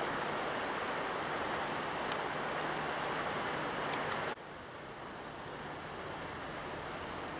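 Steady rush of the Arkansas River running over shallow rocks. About four seconds in it drops suddenly to a quieter, even rush.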